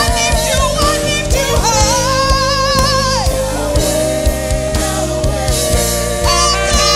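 Live worship band playing: a woman sings long held notes with vibrato over a steady drum-kit beat.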